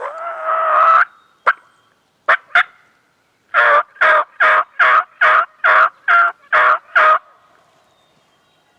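Turkey yelping: a longer call, a few single yelps, then a run of about nine evenly spaced yelps at two to three a second.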